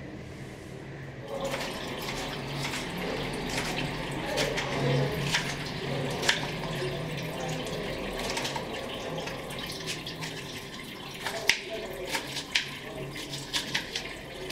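Kitchen tap running into a sink, starting about a second in, with a few sharp clinks near the end.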